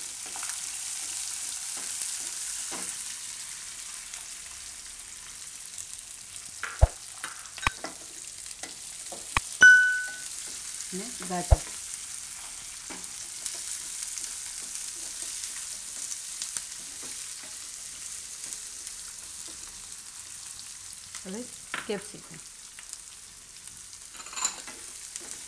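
Chopped onions and peanuts sizzling in hot oil in a kadai, stirred with a wooden spatula that knocks against the pan a few times. A short ringing ding sounds about ten seconds in.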